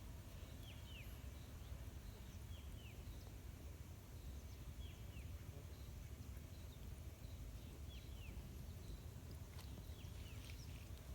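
A bird calling: short pairs of quick falling chirps, repeated every two to three seconds, over a steady low rumble.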